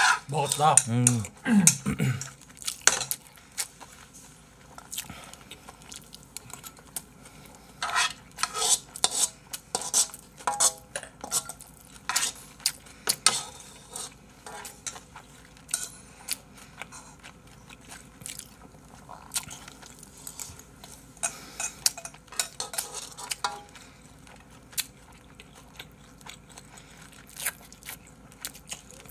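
A metal spoon scraping and clinking against a metal frying pan as fried rice is scooped up and eaten, in irregular clusters of quick strokes with quieter gaps between.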